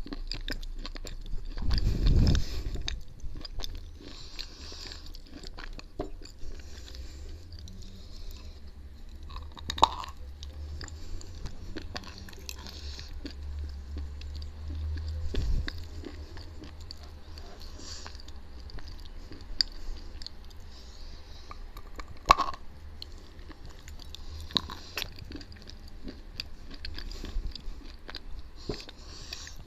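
Close-up chewing and crunching of edible chalk and clay paste, with occasional sharp crunches as pieces break between the teeth. The loudest burst comes about two seconds in.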